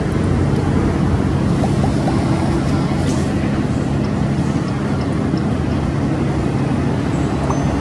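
An engine running steadily, a low even drone over a noisy background.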